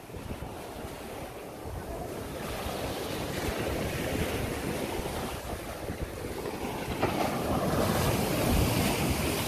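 Small waves breaking and washing up a sandy beach, growing louder over the first few seconds, with wind buffeting the microphone.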